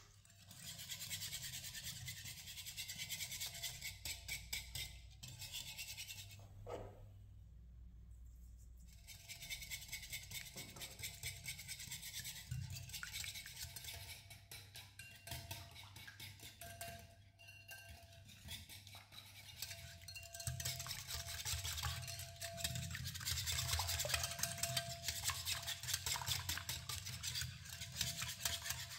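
Fork and wire whisk beating a liquid egg, milk and sugar mixture in a glass bowl: rapid, rhythmic scraping and clinking against the glass, with a couple of short pauses.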